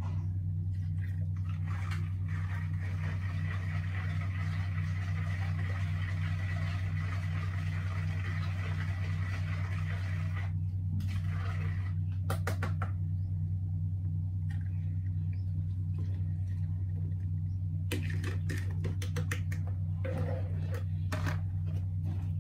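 Liquid poured from a plastic basin through a plastic funnel into a plastic jug, splashing and trickling for about nine seconds, then a few short plastic knocks. A steady low mechanical hum runs underneath throughout and is the loudest sound.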